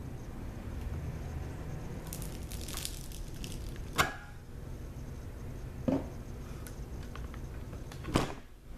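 Multi-wire soap loaf cutter pressed through a loaf of soap: faint crackling as the wires cut through, then three sharp clacks of the metal cutter frame, the loudest about four seconds in and the others about two and four seconds later.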